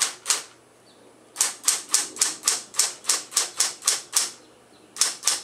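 Smith Corona Coronet Super 12 electric typewriter being typed on, keys striking the platen. A couple of key strikes, a pause of about a second, then a steady run of about a dozen strikes at roughly four a second, a short pause, and typing starts again near the end.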